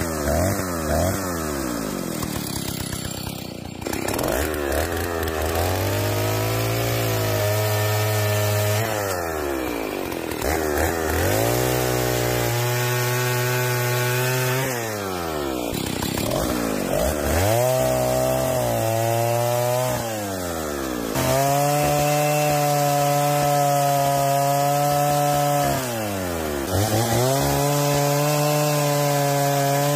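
Stihl 08 S single-cylinder two-stroke chainsaw cutting through a log. The engine is revved over and over: its note rises, holds at full throttle and falls back, about every four to five seconds.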